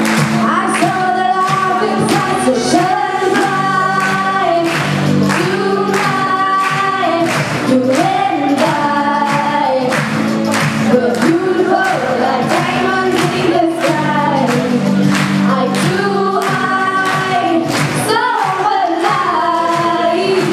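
A song with a steady beat, sung by women's voices, one of them singing into a microphone with others joining in.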